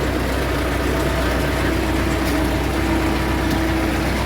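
MTZ-50 tractor's four-cylinder diesel engine running steadily.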